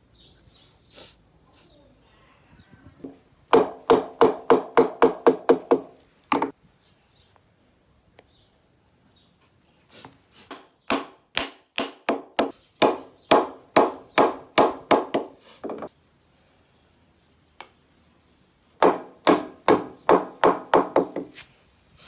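A hammer driving wooden wedges into the leg joints of a wooden sofa: three runs of quick, ringing strikes on wood, about four a second, each run lasting two to six seconds with pauses between.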